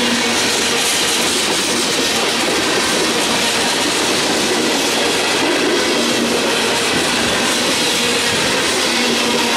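Freight train's tank cars rolling past close by: steady, unbroken wheel-on-rail noise from the passing cars.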